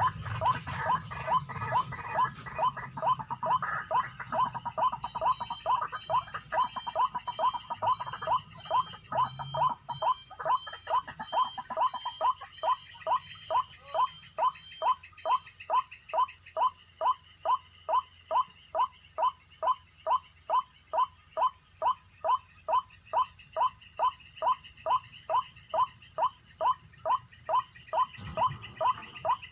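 White-breasted waterhen (ruak-ruak) calling, one short note repeated steadily about twice a second, with a steady high hiss behind it.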